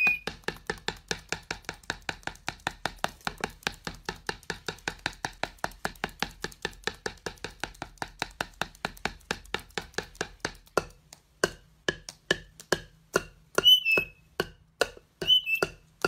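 Rapid, even tapping on an upturned wooden bowl, about five taps a second, slowing to about three a second late on. Near the end come two short high squeaks.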